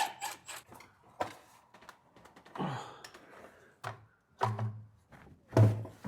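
Truck air intake parts being handled and inspected: scattered clicks, knocks and a few dull thunks.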